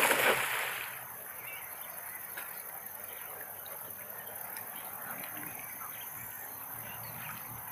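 A cast net splashes down onto a shallow river, a short loud burst of spray in the first second. After that, a low steady background with a few faint chirps.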